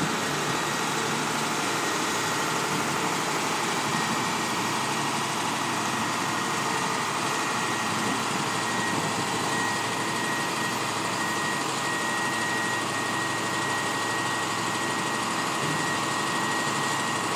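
John Deere 544K wheel loader's diesel engine running steadily as its high-tip bucket is raised and tipped, with a steady high whine over it.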